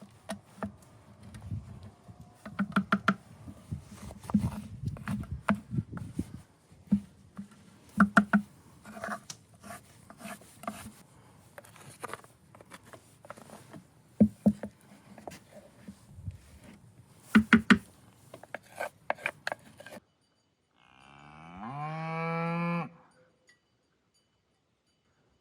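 A run of irregular knocks and taps, then a sudden cut to silence, then one loud cow moo lasting about a second and a half near the end.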